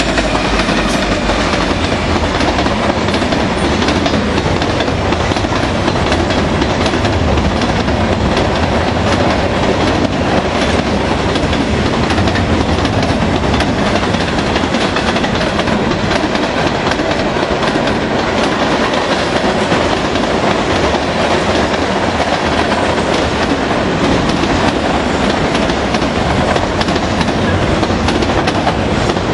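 A Canadian National freight train passing close by: the lead diesel locomotive goes by at the start, then a long string of freight cars rolls past at a steady loudness, the wheels clattering over the rails.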